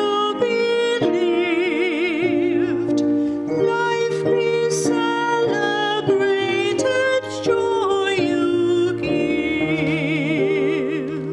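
A slow song sung with instrumental accompaniment; the voice holds long notes with a wavering vibrato.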